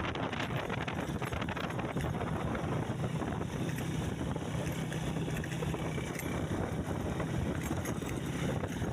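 A motor running steadily with a low hum, under wind rushing over the microphone.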